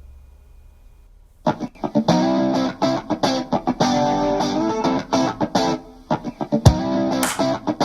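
Rock song played through a pair of Bowers & Wilkins 705 S2 standmount loudspeakers, heard in the room. After about a second and a half of faint low hum, strummed electric guitar chords start, with a heavy drum hit near the end.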